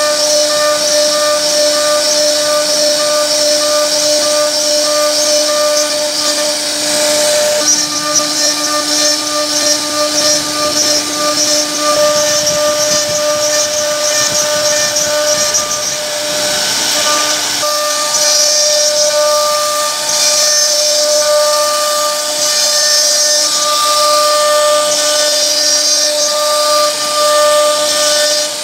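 CNC router spindle running with a steady high whine while its bit carves a relief pattern into a solid wood door panel, with a hiss of cutting over the top. The sound shifts twice, about a quarter of the way in and again just past halfway.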